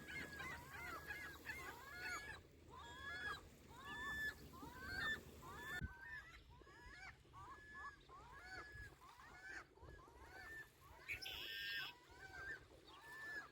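Gulls calling over and over in rapid, arched cries, about two to three a second, with a low wash of lake waves beneath.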